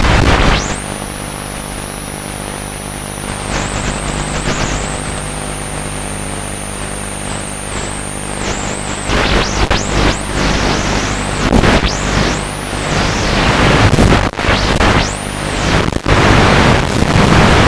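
High-pitched whine of a radio-controlled FPV aircraft's electric motors, heard from on board with heavy wind rush. The whine holds steady for the first few seconds, then repeatedly rises and falls as the throttle is pushed and released. Loud gusts of wind noise come in toward the end.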